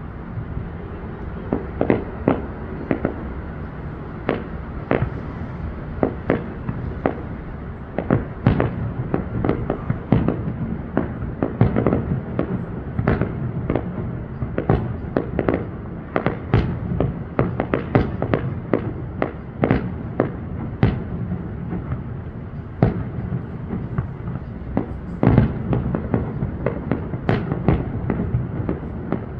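Fireworks bursting in a rapid, irregular run of sharp bangs, often several a second, over a steady low background rumble, with a denser, louder cluster of bangs near the end.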